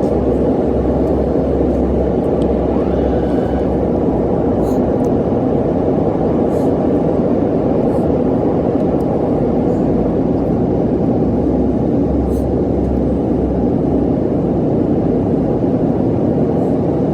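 Steady roar of airliner cabin noise inside an Airbus A330, a continuous low rushing sound that holds level throughout.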